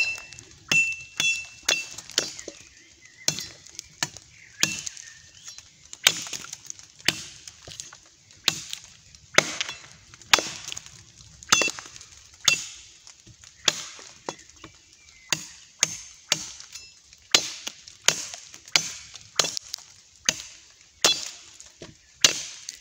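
Tramontina machete chopping again and again into a thin wooden stake, carving it to a point, about one stroke a second. Some strokes leave a short, high metallic ring off the blade.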